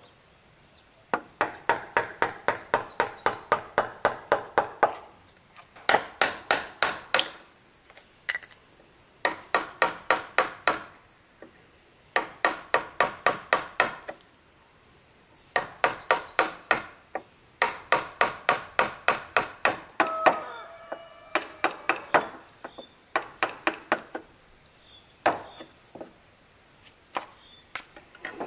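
Wooden mallet driving a wood chisel into a timber board to cut a joint: runs of sharp knocks, about four a second, each run lasting a few seconds with short pauses between, thinning to occasional single taps near the end.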